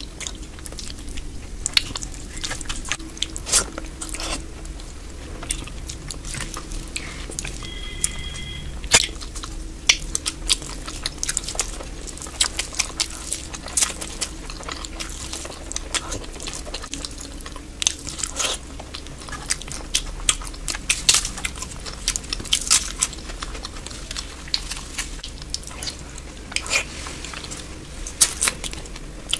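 Close-up eating sounds: chewing, wet mouth smacks and many quick clicks, with crisp crunches of papad, over a steady low hum.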